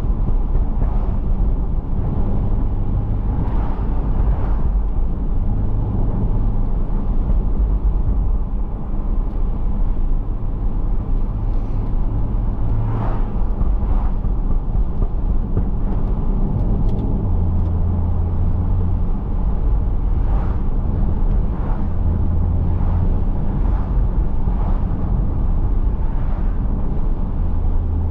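Stage 2-tuned, catless BMW 335i's turbocharged inline-six and road noise heard from inside the car while cruising. It is a steady low drone whose pitch steps up and down a little as the engine speed changes.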